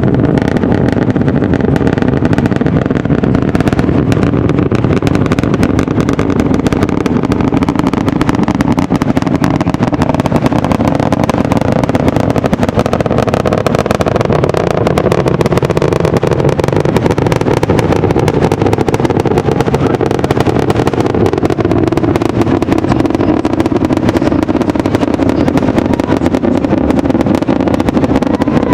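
SpaceX Starship's Super Heavy booster, its 33 Raptor engines firing during ascent, heard from far off as a loud, continuous rumble thick with crackle.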